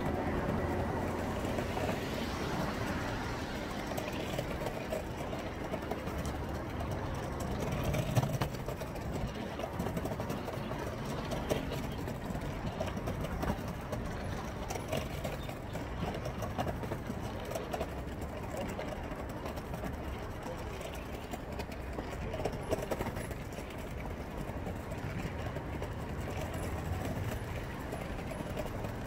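Longboard wheels rolling over paving tiles: a steady rumble with fast clicking over the tile joints and a few sharper knocks.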